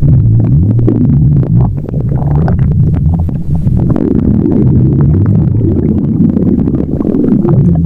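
Stomach growling: a loud, continuous low rumble that wavers in pitch, with many small clicks over it.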